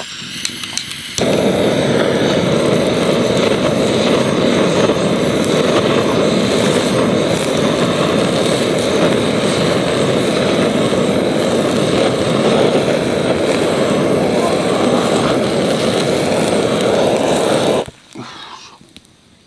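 A handheld gas torch lights after a few clicks about a second in. It burns with a loud, steady rush of flame while searing salmon skin in a pan to crisp it, then shuts off abruptly near the end.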